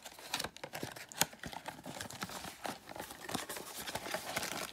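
Small cardboard box being pried and torn open by hand: scattered sharp crackles and the crinkling of packaging.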